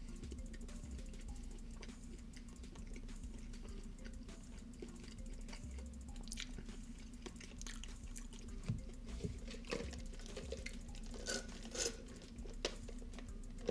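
Soft, close-up chewing of a mouthful of chicken wing, with wet mouth clicks and lip smacks over a low steady hum. In the second half the smacks come more often and louder, with sips from a drink cup near the end.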